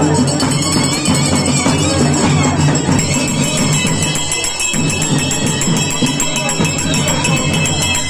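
Loud music with a steady beat and rhythmic jingling percussion over it, easing briefly about halfway through.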